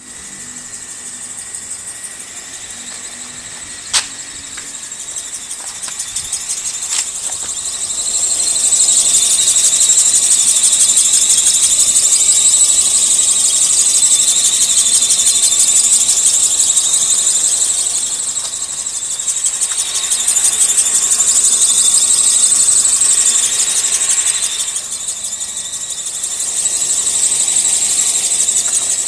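Toyota Vios drive belt squealing, an abnormal belt noise at its loudest and worst. The piercing high-pitched squeal grows loud about eight seconds in, then swells and eases over the rest, with a sharp click about four seconds in.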